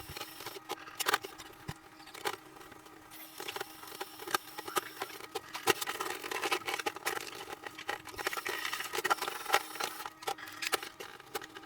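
Irregular light clicks, knocks and rustles of things being handled and set down, a quick scattered series with no steady rhythm.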